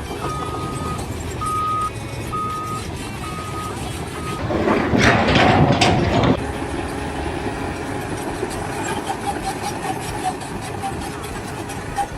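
A heavy vehicle's reversing alarm beeping five times, about once a second, over engine noise. It is followed about four and a half seconds in by a loud, rough noise lasting nearly two seconds, then steady engine noise again.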